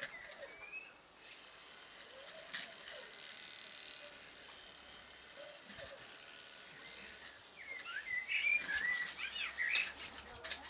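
Garden birds chirping, with a burst of louder warbling song in the last few seconds.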